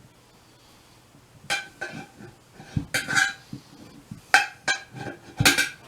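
Steel tire spoons clinking and clanking against a wheel rim and each other as they lever a soaped tire bead over the rim edge. There is a series of sharp, ringing metal strikes at an uneven pace, starting about a second and a half in.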